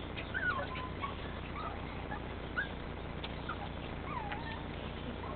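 Puppies whimpering: about five faint, short, high whines and squeaks spread over a few seconds, one a falling whine near the end.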